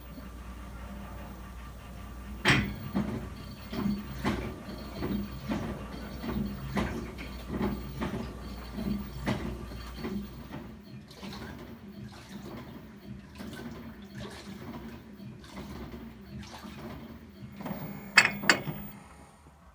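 LG WT7800 top-load washer's impeller agitating water in the tub during a tub-clean wash, a rhythmic sloshing churn roughly every half second that grows fainter about halfway through. Near the end come two loud clicks and the sound drops away as the wash ends ahead of the drain.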